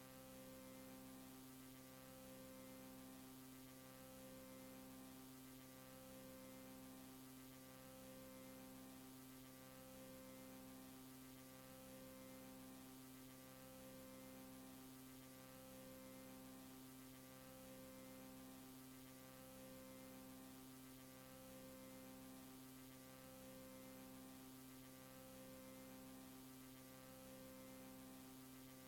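Very faint low electronic drone of steady tones, with one layer pulsing on and off about every two seconds.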